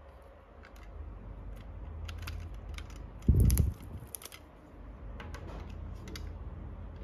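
Utility knife blade scraping and cutting through the plastic jacket of a coaxial cable, with scattered small clicks as the jacket is peeled off the braided shield. A dull thump about halfway through is the loudest sound.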